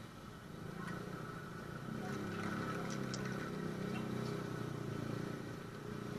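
A motor vehicle engine running steadily. It gets louder about two seconds in, with a few light clicks over it.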